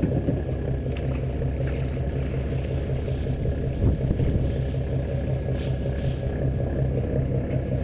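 Boat engine running with a steady, even drone.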